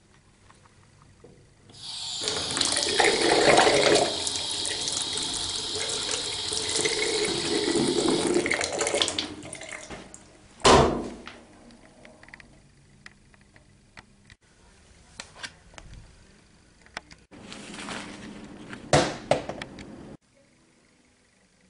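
Water running or pouring for about seven seconds, then one loud knock and a few small clicks, then a second, shorter run of water that cuts off abruptly.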